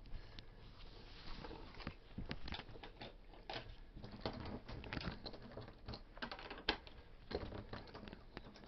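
Irregular light clicks, knocks and rustling of people moving about and handling things while searching a room.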